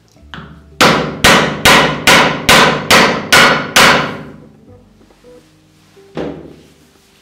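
Hammer striking an aluminium rammer to pack composition into a 1/2-inch paper rocket casing. There is a light tap, then eight loud, evenly spaced blows about two a second, each ringing briefly, and a single further blow near the end.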